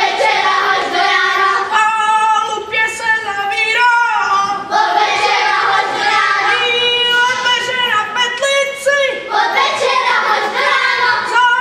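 A group of high voices singing a song together.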